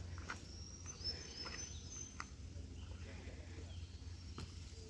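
Footsteps on a forest trail, with a few faint high bird chirps about a second in.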